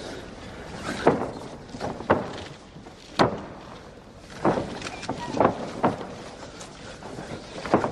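Irregular dull thumps and slaps of two bare-skinned fighters grappling on a ring canvas, about seven in all, over a steady arena hum.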